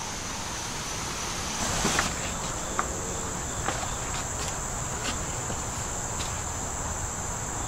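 Insects calling in the woods: a steady, high-pitched buzzing drone, with a second, slightly higher voice joining about one and a half seconds in. A few light clicks and a brief rustle sound over it.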